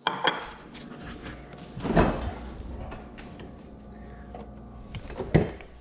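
A refrigerator door pulled open with a thump about two seconds in and shut with a sharp knock near the end, with lighter clicks of items being handled in between.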